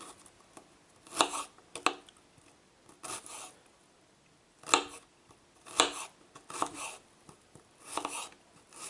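Kitchen knife chopping an onion into small pieces: about eight short, crisp cuts at an uneven pace.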